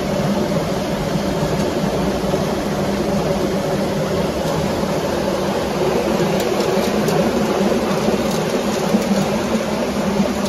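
Centuries-old water-powered stone mill running: the millstone turning and grinding maize with a steady rumble, with light ticks now and then.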